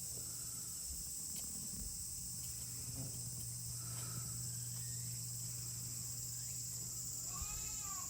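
Insects droning steadily in a high-pitched summer chorus. Near the end a young goat kid starts to bleat, one call with rising and falling pitch.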